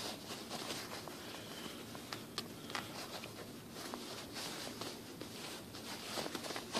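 Faint rustling and scraping of camouflage uniform trouser fabric as the bloused pant legs are pulled and adjusted by hand, with a few small ticks scattered through it.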